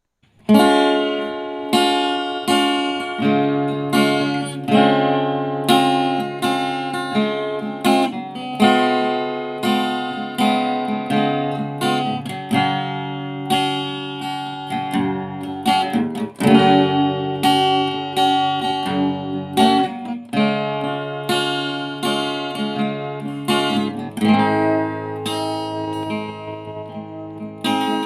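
Acoustic guitar playing, with notes and strums about every half second.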